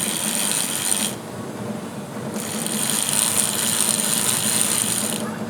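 Blast of air drying a freshly washed bicycle chain: a steady hiss in two bursts, the first stopping about a second in and the second running from near the middle to shortly before the end.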